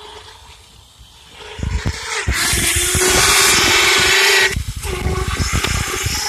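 A 12-volt winch motor driving a homemade electric bicycle, running with a steady low whine under way. From about a second and a half in there is rumbling and buffeting on the microphone, and a loud rushing hiss, loudest from about two to four and a half seconds in.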